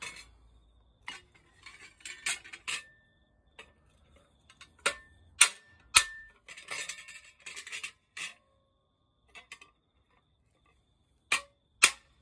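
Hand hammer striking a cold chisel on a thin steel plate laid on an anvil, chiselling out the metal between drilled holes. There are about ten sharp metallic strikes in irregular groups, some with a short ring, a brief clatter around the middle, and a pause of about three seconds before two last blows.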